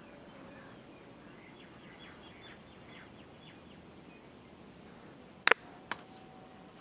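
A run of faint bird chirps, then a sharp snip about five and a half seconds in and a smaller one just after: pruning shears cutting a bonsai branch.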